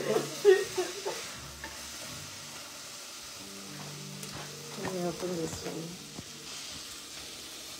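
Chopped onions and tomatoes sizzling as they fry in a pot on the stove, a steady sizzle after a short louder sound right at the start.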